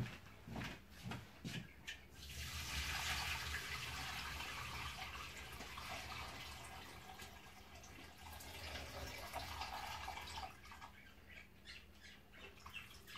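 Starchy rinse water being poured off shredded raw potatoes through a sieve into a sink: a steady splashing rush of water lasting several seconds, loudest at first, with a few light knocks of the dishes being handled before and after it.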